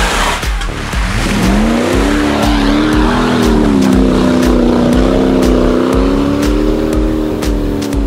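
A car engine revving hard: the revs climb about a second and a half in, then are held high with small rises and dips. It plays under music with a steady thumping beat.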